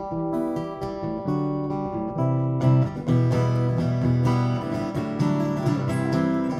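Acoustic guitar played solo: held, picked chords at first, turning to fuller and louder strumming a little under three seconds in.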